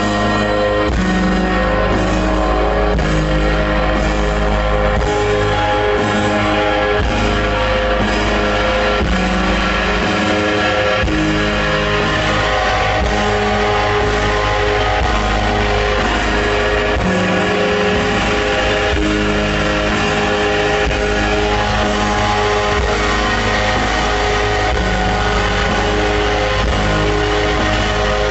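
Rock band playing live: electric guitars and bass in a slow instrumental post-rock piece, layered held notes over a steady low drone, loud throughout.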